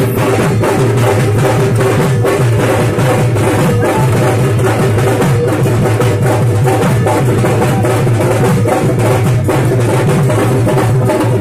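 Loud, fast drumming, a dense and unbroken beat of drum strokes.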